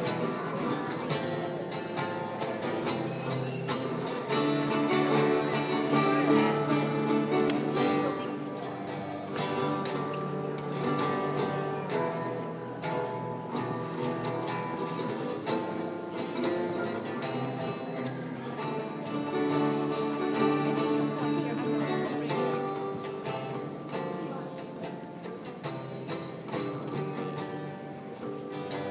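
Two acoustic guitars playing a tune together, a steady run of picked notes.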